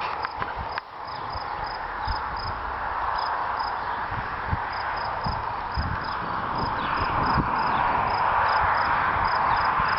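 Outdoor ambience: a steady hiss that swells in the second half, with a faint high chirp repeating two or three times a second and scattered low bumps on the microphone.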